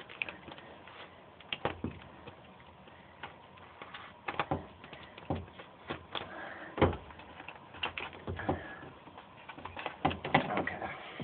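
Sheets of Damplifier Pro sound-deadening mat being handled and pressed onto ribbed sheet-metal floor: irregular clicks, taps and light knocks with faint rustling, the sharpest knock about seven seconds in and a cluster near the end.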